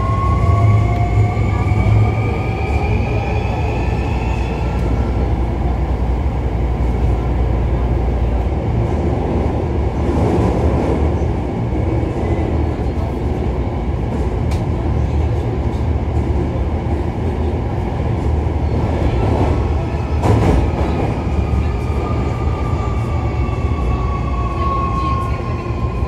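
Hankyu 1300 series train's Toyo IGBT VVVF inverter whining and rising in pitch as it accelerates over the first few seconds, then steady wheel and rail running noise, heard from inside the car. Near the end a whine returns and falls in pitch as the train brakes.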